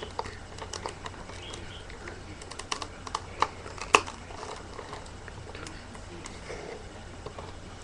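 Irregular light clicks and taps of a taped cardboard box being handled and picked at with a kitchen knife, the sharpest click about four seconds in, over a faint steady low hum.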